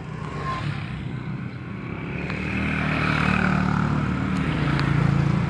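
A motor vehicle's engine running close by, a low steady hum that grows louder over the second half.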